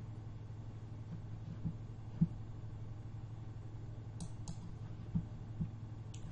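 Computer mouse clicking: two clicks close together about four seconds in and one more near the end, over a low steady hum. A few short soft thumps, the sharpest about two seconds in, are the loudest sounds.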